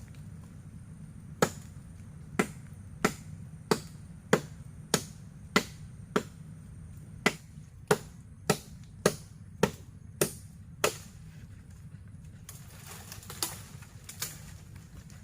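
Chopping: about fifteen sharp strikes at a steady pace of roughly one and a half a second, then they stop and a soft rustling follows near the end.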